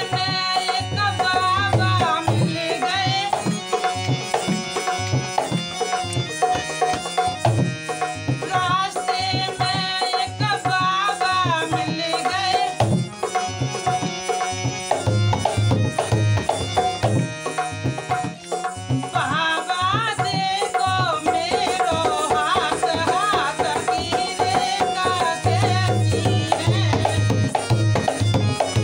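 Folk devotional bhajan music: a dholak drum is played in a steady rhythm under a hand-pumped harmonium's reed melody and held drone. A male voice sings phrases at intervals.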